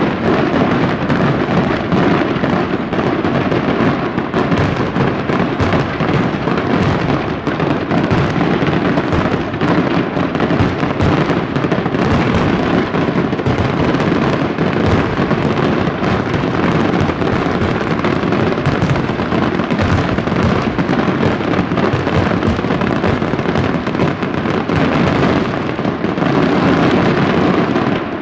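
Fireworks display in a dense, continuous barrage: rapid overlapping bangs and crackles of bursting shells and firecrackers with no pause between them, growing a little heavier near the end.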